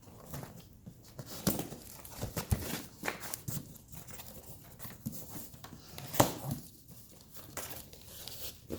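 Cardboard box being opened and its contents handled: scattered rustles, scrapes and knocks, with a sharp click about six seconds in.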